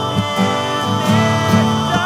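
Recorded emo/post-hardcore band music with guitars, loud and sustained.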